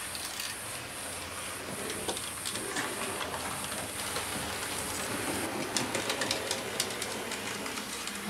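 Hornby Jouef HO-scale model 141 TA steam tank locomotive running along the layout's track, its wheels making a steady run of small clicks, thicker and louder about six to seven seconds in.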